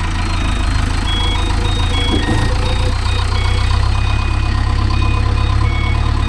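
Diesel engine of a farm tractor idling steadily, with a low, even throb.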